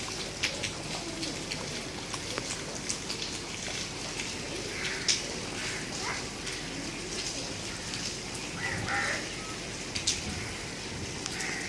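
Steady rain falling, with many sharp taps of individual drops hitting a nearby surface, and a few short bird calls.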